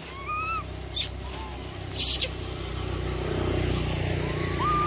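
Young macaques giving short, loud, high-pitched squeals about one and two seconds in, with a few brief arched calls, while a motor vehicle's low rumble grows steadily louder over the second half.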